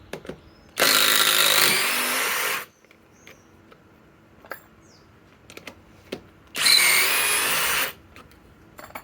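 Kobalt XTR 24-volt impact driver running in two loud bursts, the first about two seconds and the second about a second and a half, backing out 6-inch TimberLok screws. Faint clicks and knocks come between the bursts.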